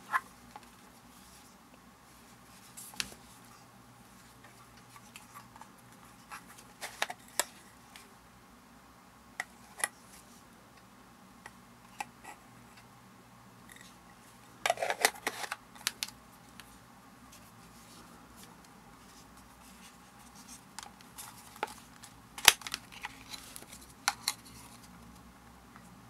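Hard plastic clicks, taps and brief scrapes as the parts of a FUJIN lens-shaped camera dust vacuum are twisted apart and handled; the motor is not running. The busiest bursts of scraping come about halfway through and again near the end.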